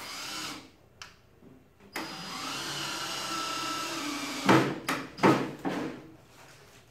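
Cordless drill running steadily into wood for about two and a half seconds, then a few short, louder bursts of the drill near the end.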